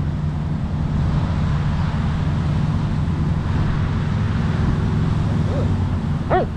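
Steady low rumble of road traffic with wind on the microphone. Near the end there are two short, high-pitched sounds that rise and fall.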